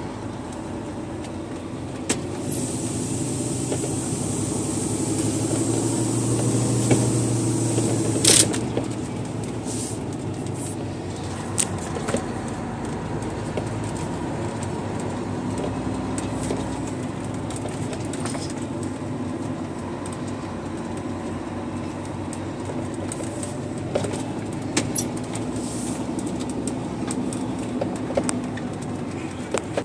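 Scania truck's diesel engine running as it drives slowly on a gravel quarry road, heard from inside the cab, with cab rattles and knocks over the top. The engine grows louder over the first eight seconds, then a short sharp noise sounds and the engine eases back to a steady run.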